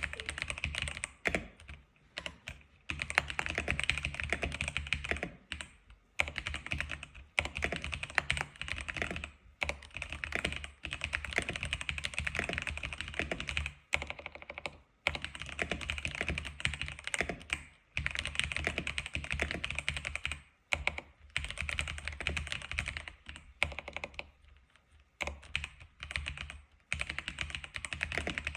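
Fast typing on an X87 keyboard: rapid runs of keystrokes several seconds long, broken by short pauses about every few seconds.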